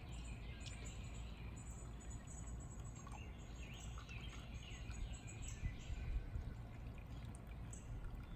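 Faint, short bird chirps repeating over a low steady hum.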